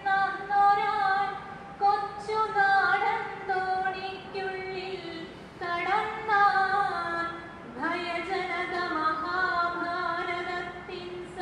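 A woman singing a verse unaccompanied in the traditional chanted style of akshara shloka recitation, in long held melodic phrases with short breaks between them.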